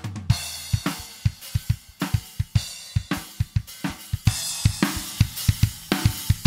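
A drum-kit groove with kick, snare, hi-hat and cymbals playing a fast, steady beat, used as an example of compression making a drum track punchier. About four seconds in the cymbals and overall level step up, louder and brighter.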